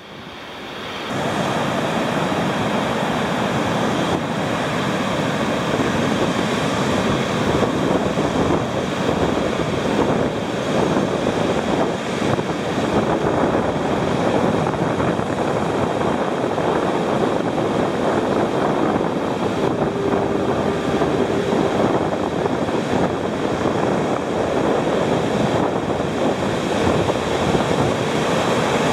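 Pacific Ocean surf breaking and washing up a sand beach, a steady rushing noise, with strong wind blowing over the microphone.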